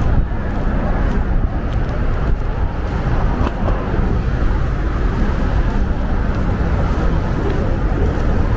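Steady city traffic noise: a continuous low rumble of passing vehicles, with no single event standing out.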